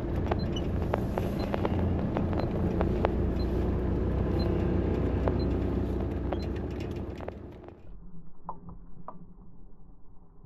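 Vehicle driving, heard from inside the cabin: a steady low road-and-engine rumble with frequent rattles and clicks, and a faint high tick about once a second. About eight seconds in it cuts off, replaced by a quieter muffled sound with a few clicks.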